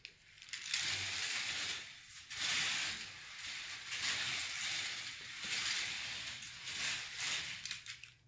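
K'Nex roller coaster train's plastic wheels running along the plastic tubing track: a rushing rattle that swells and fades in waves as the train goes through the drops and turns. It dies away near the end as the train slows.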